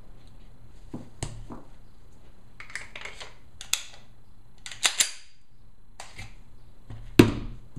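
Handguns being handled: a scattering of sharp metallic clicks and clacks from the magazines and mechanisms, with a heavier knock about seven seconds in.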